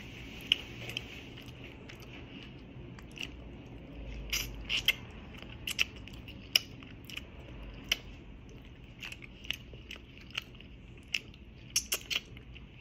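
Close-up eating sounds as fish is picked apart by hand and chewed: a scattering of small irregular clicks and crunches, with soft mouth sounds between them.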